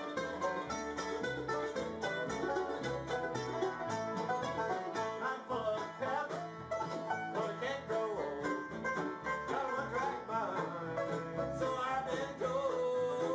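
Bluegrass band playing an up-tempo tune on mandolin, banjo, acoustic guitar, fiddle and plucked upright bass, the bass keeping a steady beat under the picked notes.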